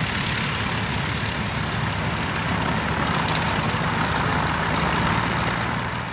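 Piston engines of vintage light aircraft running at low power as they taxi, a steady low drone that fades away at the very end.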